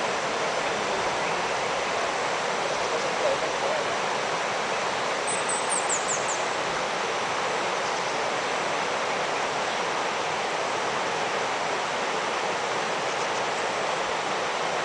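Shallow river rapids rushing steadily over rocks, a continuous even hiss of flowing water. About six seconds in, a brief run of high, falling chirps sounds over the water.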